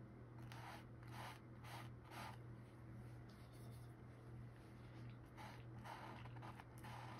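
Paintbrush strokes on a painted panel: faint, short scratchy swishes, a run of several in the first couple of seconds and more near the end, over a steady low hum.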